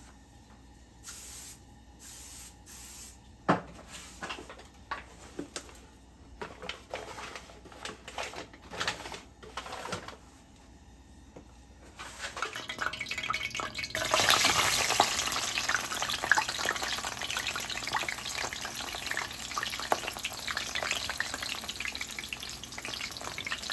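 Kitchen handling clicks and knocks, then food frying in a pan: a steady sizzle and crackle that starts about halfway through and gets louder shortly after.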